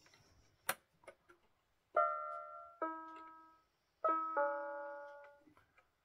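Pink Starz Girls 37-key toy electronic keyboard sounding four electronic tones in two close pairs, each fading away. The tones are preceded by a sharp click about a second in.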